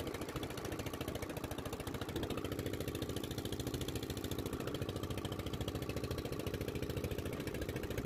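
Wooden fishing boat's engine running steadily at a rapid, even chug.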